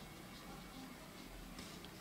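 Faint scratch of a brush pen tip drawing across paper, strongest in a short stroke near the end, over quiet room tone.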